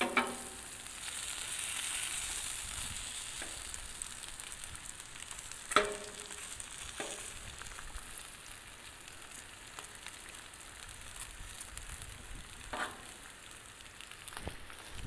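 Bacon, sausage patties and shredded hash browns sizzling steadily on a Blackstone flat-top griddle over low heat, with a few sharp clicks and scrapes of a metal spatula on the griddle plate, the loudest about six seconds in.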